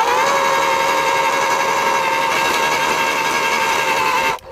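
AEG twin-18V battery post hole borer's electric motor spinning the auger at its fastest speed, a steady whine after finishing its spin-up, then stopping suddenly near the end. The auger is being spun to fling clinging clay off it, and the speed is not enough to throw it clear.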